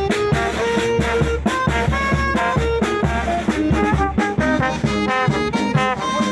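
Brass band playing a marinera norteña: trumpets and trombones carry the melody over a steady low beat.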